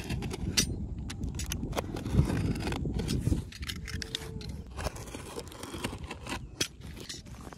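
Scattered sharp clicks and scrapes over a steady low rumble, with the loudest knocks a little after two seconds in.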